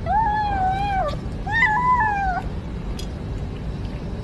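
A kitten meowing twice: two drawn-out calls of about a second each, each holding its pitch and then falling away at the end, over a steady low background rumble.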